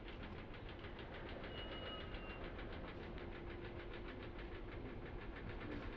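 Faint metro train noise: a steady low rumble with a quick, regular ticking running through it. A brief thin whine comes about a second and a half in.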